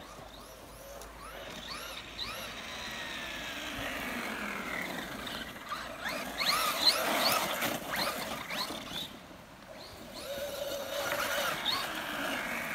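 Traxxas Rustler 4x4 VXL RC truck's brushless electric motor on a 3S LiPo, whining as it revs up and down in quick rising and falling glides while the truck drifts on ice and snow. It eases off for a moment about nine seconds in, then picks up again.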